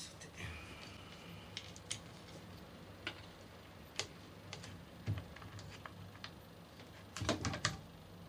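Scattered light clicks and knocks from handling the router table's boxed fence cover, with a quick cluster of louder knocks near the end as the cover is lifted off the table. A faint steady low hum runs underneath.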